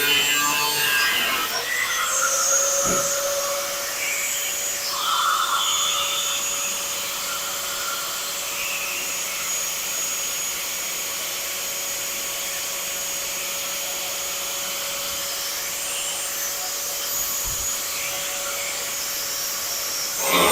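Power tool running steadily, a constant whine over a hiss, with a couple of brief knocks.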